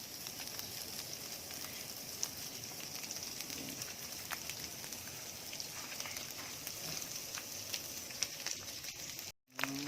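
Onions and chopped lechon sautéing in hot oil in a pan: a steady sizzle with scattered small pops. The sound breaks off for a moment near the end.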